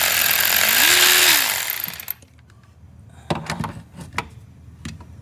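Red cordless impact driver hammering on a bolt, stopping abruptly about two seconds in, followed by a few sharp clicks and knocks.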